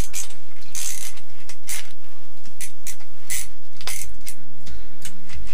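Fishing reel clicking and ratcheting in irregular sharp clicks while a hooked trout is played up through the ice hole.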